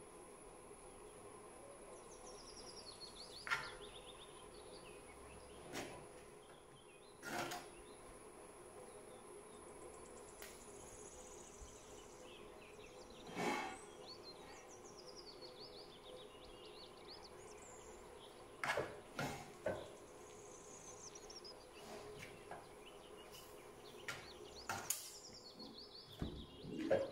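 Metal spoon knocking and scraping against a terracotta clay pot every few seconds as vegetables are mixed, over a faint steady hum. Faint birds chirp in the background.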